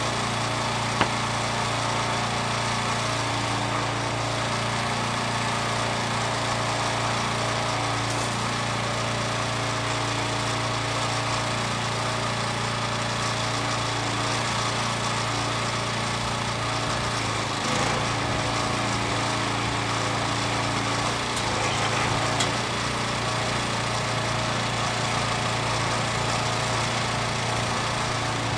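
Engine running steadily at a constant speed, with a single light knock about a second in.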